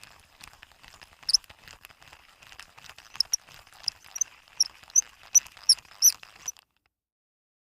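A faint crackling hiss with small ticks, then a run of sharp, high squeaky clicks, two or three a second, that cuts off suddenly.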